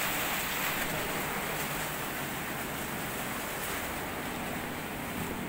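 A large swarm of giant honey bees (Sialang bees) buzzing close around the microphone as a steady, dense hiss with a faint low hum beneath it.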